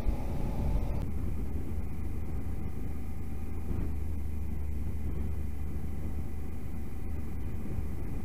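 A motorcycle cruising at steady speed: a continuous low engine drone under wind rush. A faint higher tone drops away about a second in.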